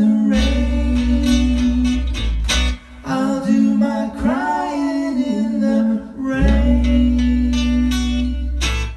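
Live band playing a slow pop song: guitars and electric bass under long held sung notes, with short breaks between phrases.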